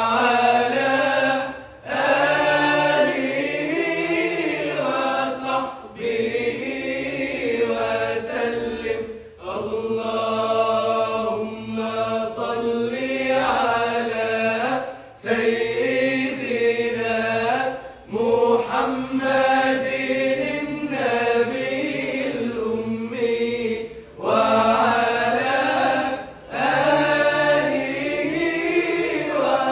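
Group of men singing an unaccompanied Islamic devotional chant of blessings on the Prophet, voices together in long held phrases with brief breaks for breath every few seconds.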